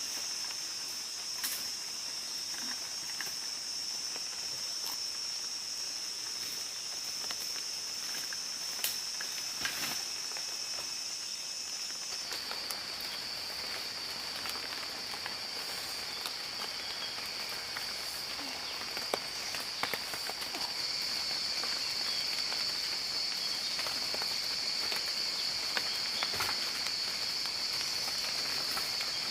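Insects droning in one continuous high-pitched note, with scattered faint clicks and rustles.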